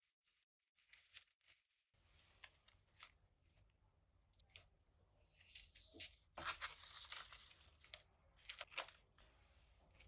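Paper being handled and torn, faint rustling and crinkling with scattered soft clicks and a louder tearing rustle about six seconds in.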